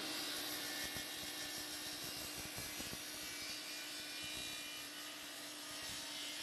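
Power miter saw running steadily with a high-pitched whine and hiss, its blade cutting through a piece of walnut stock.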